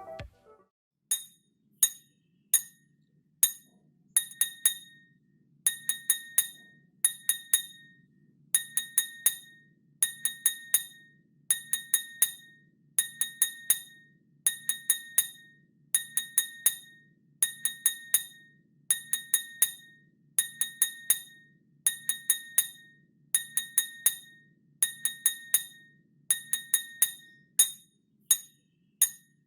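A spoon striking a drinking glass, 'ting-ting', in quick clusters of three or four clinks repeated over and over, each clink leaving a short ringing tone.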